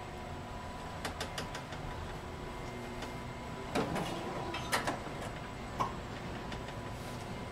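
Historic 1919 Graves freight elevator car travelling in its hoistway: a steady hum, with a run of light clicks about a second in and several sharper knocks and clunks between about four and six seconds in as the car passes a floor landing.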